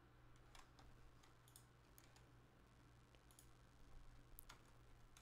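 Near silence with a faint steady hum, broken by a few faint, scattered computer mouse clicks.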